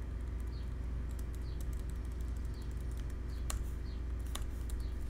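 Computer keyboard keys clicking irregularly as code is typed and deleted, with a couple of louder clicks near the end, over a steady low electrical hum.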